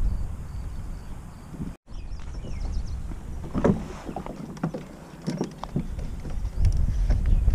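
Hollow knocks and scrapes from a plastic sit-on-top kayak and its gear as it is launched off a gravel shore, over a low wind rumble on the microphone. The sound drops out for a moment about two seconds in.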